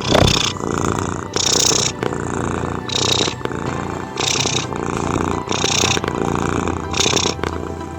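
Domestic cat purring close to the microphone. The purr swells and changes with each breath, in and out, about every second and a half.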